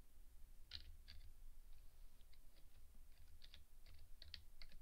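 Faint keystrokes on a computer keyboard as a line of code is typed: irregular light clicks, with a quicker run of keys near the end.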